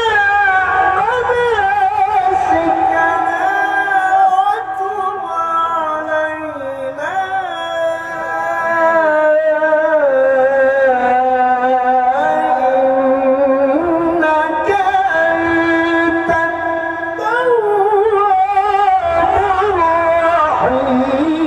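Quran recitation by a male qari: long, ornamented melodic phrases sung in held, wavering notes with glides between pitches, dipping in loudness in the middle before swelling again.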